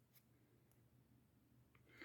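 Near silence: faint room tone with a low hum and a couple of very faint ticks.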